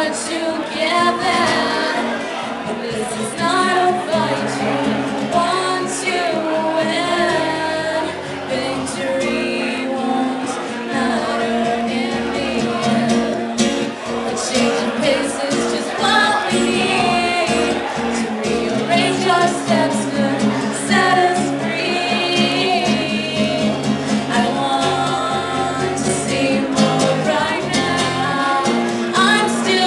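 Live acoustic song: a woman singing into a microphone over an acoustic guitar.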